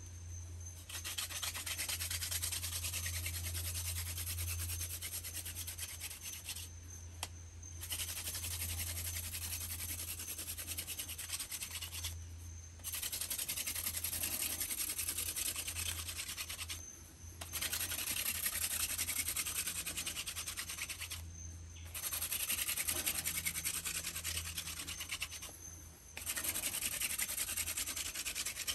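Wooden hand-drill spindle spun back and forth between the palms on a wooden hearth board, making a fast, rasping friction grind. It comes in runs of about four seconds with short breaks between them as the hands return to the top of the spindle.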